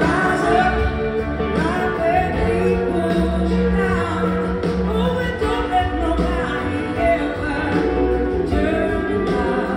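Live blues-rock band playing: a woman's lead vocal with backing singers over two drum kits, electric guitars, bass guitar and keyboards.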